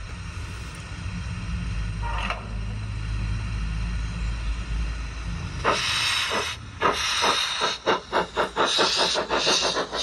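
Steam sound card of a G-scale Bachmann GWR 45xx 2-6-2 Prairie tank model locomotive. A low steady rumble with a short hiss about two seconds in, then from about six seconds a loud burst of hissing steam, followed by exhaust chuffs that quicken as the locomotive starts to move.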